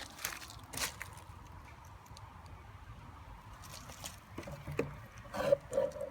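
A few footsteps in the first second, then quiet outdoor background with several short faint sounds near the end.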